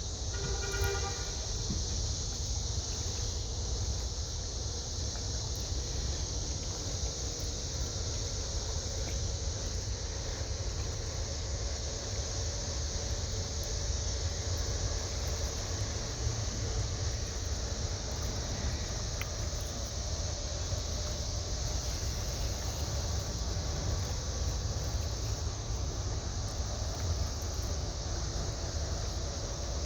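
Boat's engine running with a steady low rumble under a constant high hiss, as the boat moves slowly into a canal lock.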